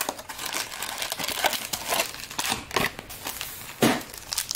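Foil trading-card pack wrappers crinkling and rustling as packs are taken from the box and handled, in irregular crackles. The loudest crackle comes near the end.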